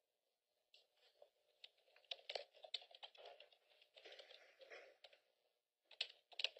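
Faint, irregular rustling and clicking of paper being handled and keys being tapped, starting about a second in.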